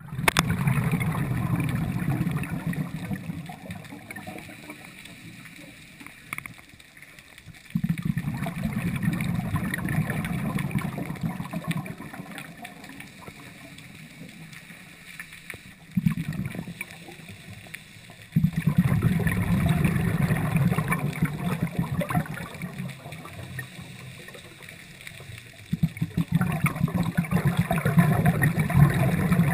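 Scuba diver's exhaled bubbles rumbling and gurgling from the regulator, heard underwater, in repeated surges several seconds long with quieter spells between breaths.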